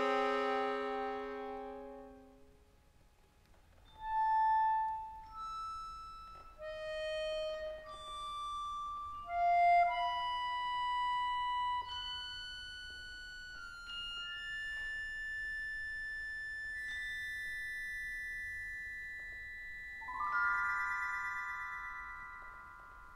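Accordion and percussion duo playing contemporary classical music. A loud accordion chord dies away, then come sparse, quiet single high notes, some struck with mallets and some held steady for several seconds. About twenty seconds in, a new accordion chord swells in.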